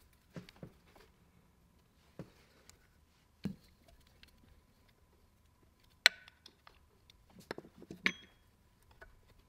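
A few scattered clinks and knocks of small hard parts being handled and set down, some ringing briefly like metal; the sharpest clink comes about six seconds in, with a quick cluster of knocks a little later.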